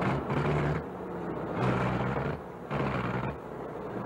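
Truck engine revving in four surges as the driver tries to pull the truck out of the mud it is stuck in.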